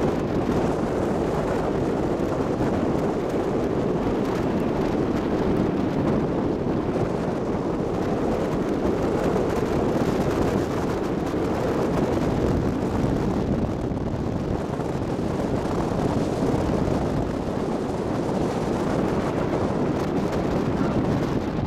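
Steady rushing noise on the deck of a ferry under way: wind buffeting the microphone over the ferry's movement through the water, even and unbroken.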